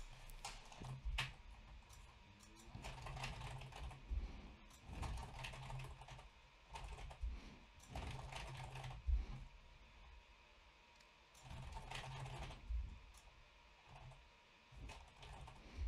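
Typing on a computer keyboard in short bursts of keystrokes with pauses between them, faint.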